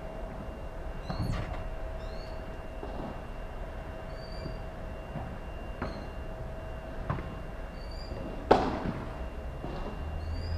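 Padel balls being struck with paddles and bouncing: a handful of sharp, scattered knocks, the loudest about eight and a half seconds in with a short ringing tail. A faint steady hum lies under it.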